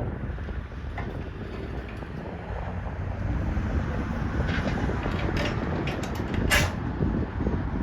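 Engine running steadily with a low rumble, most likely the tractor's; a few sharp clicks or knocks come about five to seven seconds in.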